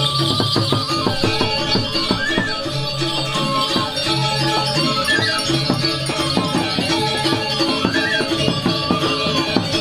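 Balinese gamelan playing barong dance music (tabuh barong). Bronze metallophones ring a steady repeating figure over fast kendang drumming, and a bamboo suling flute plays a rising-and-falling ornament every few seconds.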